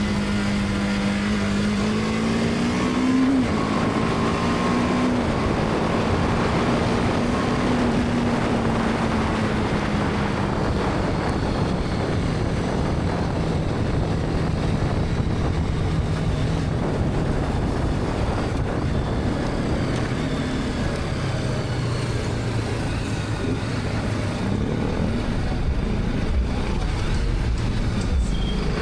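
BMW G310R's single-cylinder engine under way: its note climbs for the first three seconds and drops sharply, holds steady, then sinks gradually through the second half. A constant rush of wind and road noise runs underneath.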